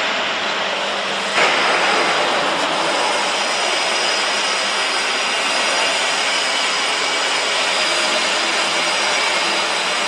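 Wood pellet production line machinery running under power, a loud steady mechanical din with a faint whine, which jumps louder suddenly about a second and a half in.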